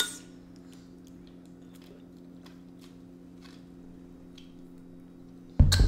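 Faint eating sounds, scattered small clicks of chewing and mouth noise, over a steady low hum. A loud sudden sound starts near the end.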